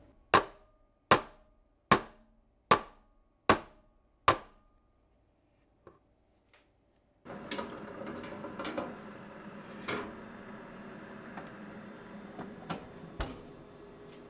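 Six sharp knocks, evenly spaced under a second apart and each ringing briefly: a metal canelé pan rapped on the counter to settle the batter. From about seven seconds in comes a steady hum with light clatter and clicks as the pan is slid onto the oven rack.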